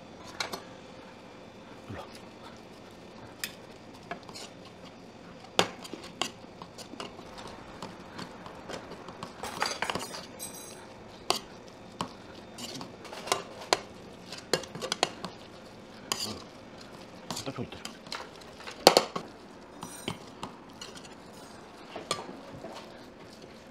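Metal ladle and spoon scraping and clanking against a metal pan as rice is stir-fried in leftover braising sauce: frequent irregular clinks and scrapes, the loudest clank about 19 seconds in.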